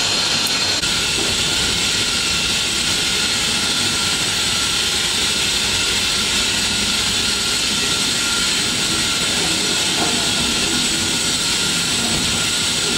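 Steady machinery noise of a glove dipping production line: a constant loud hiss with a low rumble and a faint steady whine, unchanging throughout.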